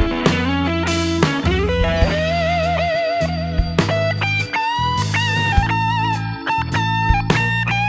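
Instrumental blues-rock background music: a lead electric guitar plays sustained notes with vibrato and bends over bass and drums.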